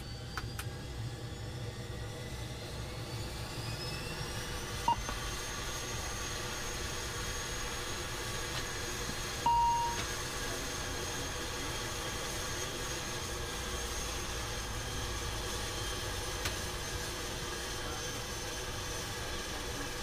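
An ATR 600 turboprop engine starting, heard from the cockpit: a high whine rises in pitch over the first few seconds as the engine spools up, then holds steady. A short beep sounds about halfway through.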